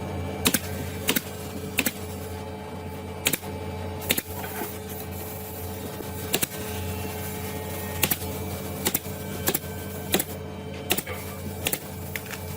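Irregular sharp knocks and taps from woodworking on a cabinet, roughly one every half second to second, over a steady low hum.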